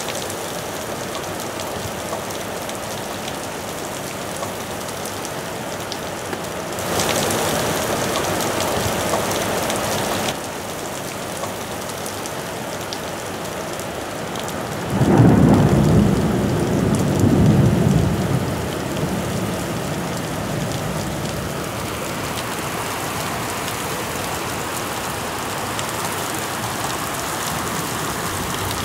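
Heavy rain falling steadily, heavier for a few seconds early on, with a low roll of thunder rumbling for about three seconds near the middle.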